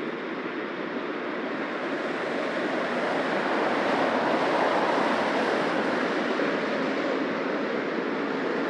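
Busy city street traffic: a steady wash of car tyre and engine noise that swells to its loudest around the middle as vehicles pass close by, then eases a little.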